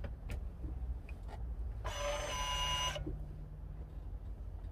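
A 2018 Honda Accord's electric parking brake releases: the motor on the rear brake caliper whirs steadily for about a second, starting about two seconds in.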